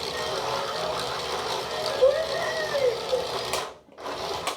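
Small electric drive motor and plastic gearing of a VTech remote-control Cory Carson toy car whirring steadily as it drives, cutting out briefly near the end.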